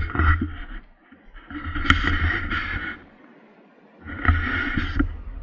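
Handling noise from the camera being moved against a jacket: three bouts of rubbing and rustling with a low rumble, with sharp knocks at the start and about two seconds in.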